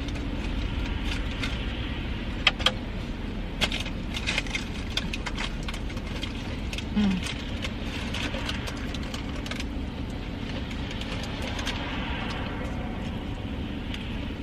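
Eating and handling takeout food: scattered crunchy clicks and crackles of chewing and packaging, busiest in the middle, over a steady low hum.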